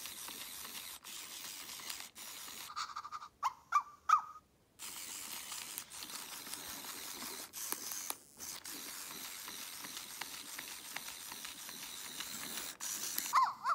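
Small geared motor of a battery-powered toy pet whirring as it drives across carpet on little wheels. It stops about three seconds in for a couple of short rising-and-falling chirps, then whirs on, with more chirps near the end.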